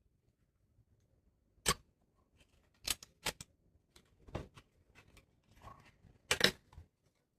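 Packaging being handled and opened: about five sharp clicks and snaps with a little rustling between them, the loudest near the end.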